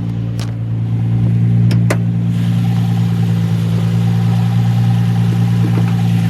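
Nissan Z sports car engine idling steadily, with a few light clicks in the first two seconds. The car has an intermittent slight misfire, which the owner suspects comes from a dirty air filter.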